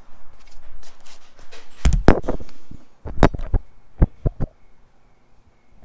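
Steel flat-bar plates and bolts being handled on a wooden cart frame: light rustling, then a cluster of loud clanks and knocks about two seconds in, followed by several single sharp clacks.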